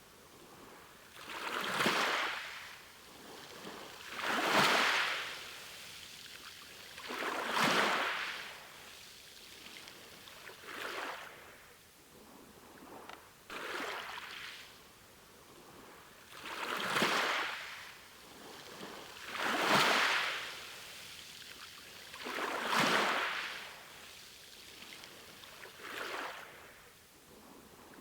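Small sea waves washing in one after another, each a rising and falling hiss of water, about every three seconds.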